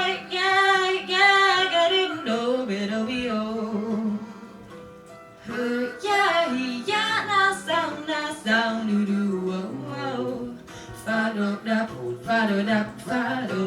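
Female jazz vocalist scat singing over piano, bass and drums: a held, wavering note for the first couple of seconds, then quick runs of wordless phrases.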